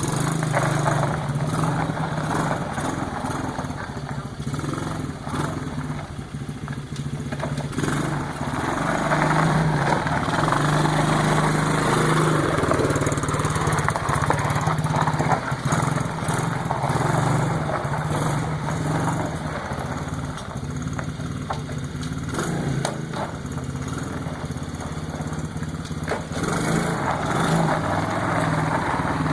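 Small single-cylinder ATV engine running, growing louder about eight seconds in and easing off somewhat later.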